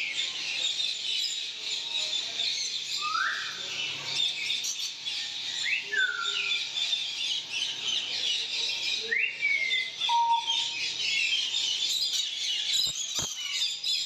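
A hall full of caged ringneck parakeets chattering, a dense high twittering throughout. Every few seconds a louder shrill call sweeps up and then down, three times, with a short single call just after the last.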